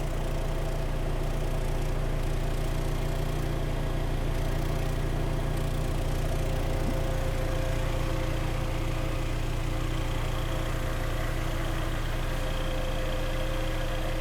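Kia Sportage 3's four-cylinder petrol engine idling steadily, with a heavy low drone from the exhaust; the catalytic converter has been removed.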